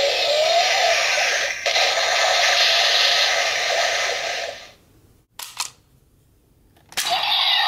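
A Kamen Rider Ghost toy's small speaker plays the Sanzo Ghost Eyecon's electronic sound effects, which cut off a little under five seconds in. A couple of plastic clicks follow, and near the end a DX Mega Ulorder toy starts its own loud electronic sound.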